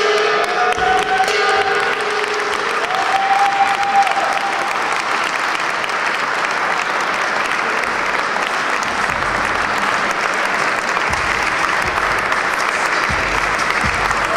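Audience applauding steadily at the end of a kickboxing bout, with a few short held tones sounding over it in the first few seconds.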